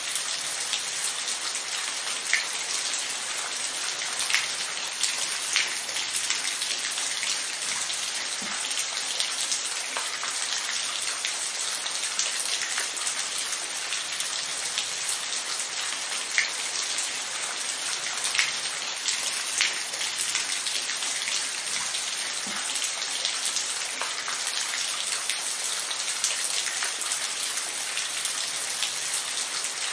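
Steady rain: an even hiss of falling rain with scattered louder single drops striking a surface.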